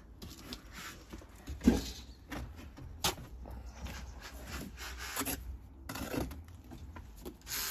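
Bricklayer's trowel scraping and slapping mortar along concrete blocks, with a few short knocks and scrapes among them over a steady low rumble.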